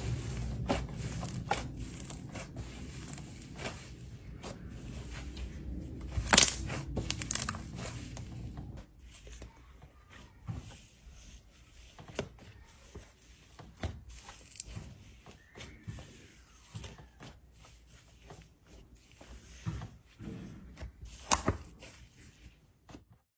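Hands squishing and kneading thick pink slime, which gives off wet crackling and sharp little pops of trapped air. The first part is louder, over a low rumble. After about nine seconds, as fingers press into slime heaped in a jar, only scattered pops remain, with a few louder ones near the end.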